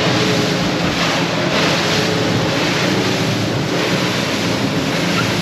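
Sea Hunt 30 center-console boat running at cruising speed over open sea: steady wind rushing over the microphone and water rushing along the hull, with the drone of the outboard engines underneath.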